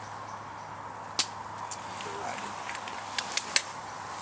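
Small log campfire crackling: irregular sharp pops and snaps over a steady hiss, the loudest pop about a second in and a quick run of pops a little past the three-second mark.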